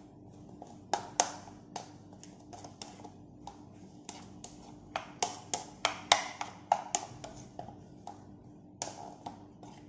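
Utensil clicking and scraping against a ceramic bowl while cooked rice is stirred and mixed, in irregular sharp taps, a few louder than the rest.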